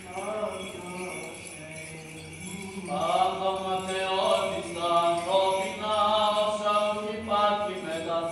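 Greek Orthodox Byzantine chant: held vocal notes over a steady low drone, growing louder and fuller about three seconds in. Mixed with it is the jingling of the small bells on a swung censer as the coffin is censed.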